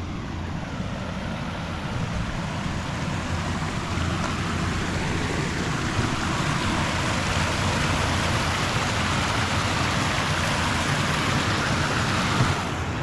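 Small creek waterfall splashing: a steady rush of falling water that grows a little louder a few seconds in and eases near the end.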